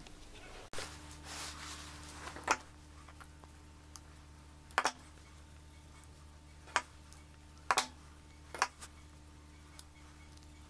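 Scattered sharp little clicks and taps, about eight in all, from small metal earring hooks and pliers being handled on a workbench, over a steady low hum.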